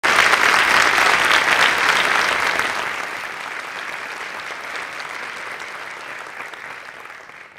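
Studio audience applauding, loudest at first and then gradually dying away.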